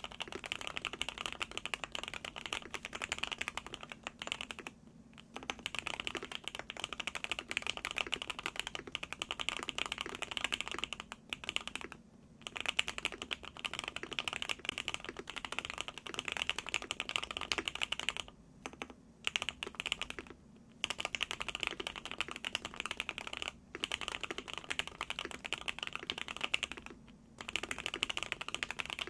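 Typing on a Qwertykeys QK65 mechanical keyboard with hand-lubed Gateron Oil King linear switches, a POM plate and a tape mod. The keystrokes come in fast runs broken by short pauses every few seconds.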